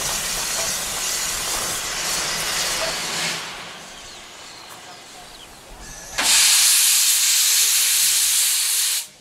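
Industrial saddle-tank steam locomotive No. 3 (Agecroft No. 3) hissing steam. A steady hiss dies down about three seconds in. Then a much louder hiss of steam blowing from the cylinder drain cocks starts suddenly about six seconds in and stops abruptly near the end.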